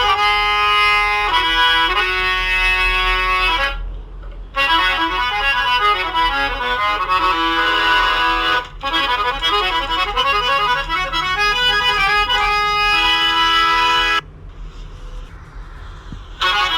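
Instrumental background music with a melody carried by pitched, sustained notes. It breaks off briefly about four seconds in and turns quieter near the end.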